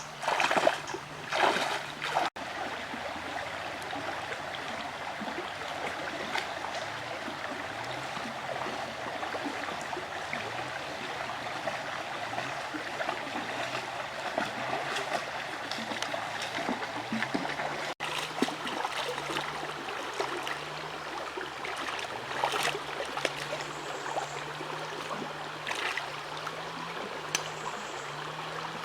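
Stream water flowing and trickling steadily, with a few louder splashes in the first two seconds.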